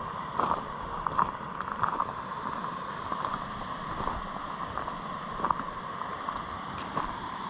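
Footsteps, a few short irregular ticks, over a steady rushing background noise.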